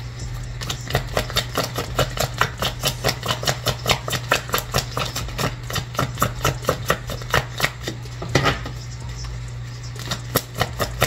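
A deck of tarot or oracle cards being shuffled by hand, a quick run of soft slaps about five a second, with a short break near the end before the slapping resumes. A low steady hum runs underneath.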